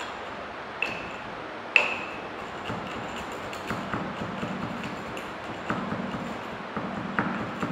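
Steel tamper striking the steel oedometer ring twice with a ringing metallic ping, then a run of small ticks and a low scraping as the tamper is pressed and worked down to compact soil inside the ring.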